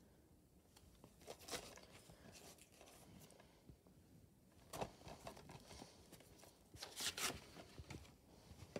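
Faint handling noise from a plastic DVD case being turned over in the hand and laid on bedding: scattered rustles and light clicks, louder twice, about five and seven seconds in.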